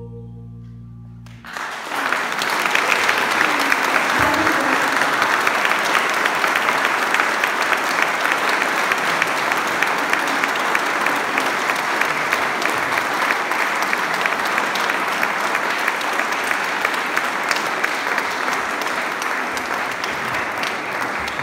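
Audience applauding steadily, starting about a second and a half in as the last held chord of the music fades out.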